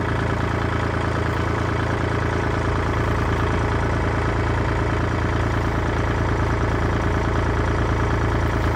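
Compact utility tractor's engine idling steadily.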